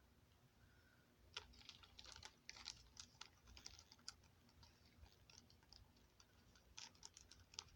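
Faint, scattered light clicks and taps, like small objects being handled, over near silence.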